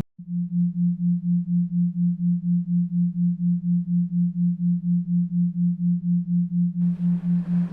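A low steady tone pulsing on and off about four times a second: an isochronic beat at about 3.9 Hz made for sleep. A hissing noise bed drops out at the start and comes back near the end.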